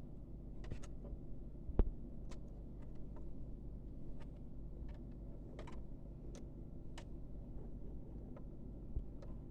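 Scattered small clicks and light taps over a low steady hum, with one sharper knock a little under two seconds in.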